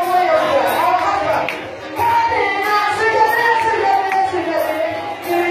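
Live gospel music: singing over a band with a steady beat of about two strokes a second.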